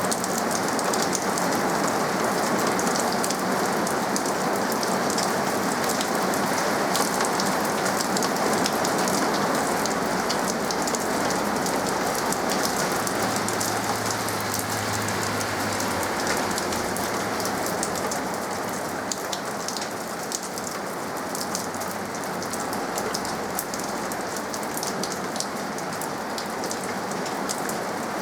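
Steady rain falling, a dense hiss of countless drops ticking and pattering, easing a little about two-thirds of the way through.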